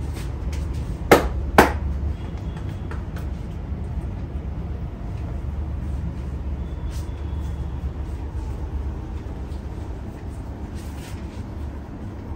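Two sharp smacks of a barber's hands during a head massage, about half a second apart and a second in, over a steady low rumble.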